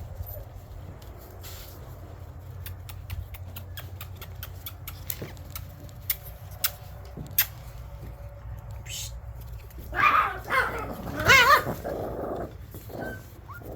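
Shiba Inu puppies at play: scattered small clicks for most of the time, then about ten seconds in a short burst of puppy growling and barking with a wavering, yelping call.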